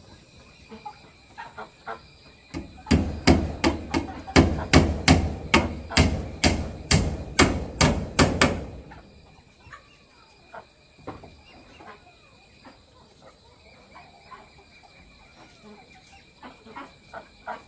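Hammer driving a nail into a wooden railing post: a quick run of about fifteen strikes, about three a second, starting about three seconds in and stopping after some five seconds.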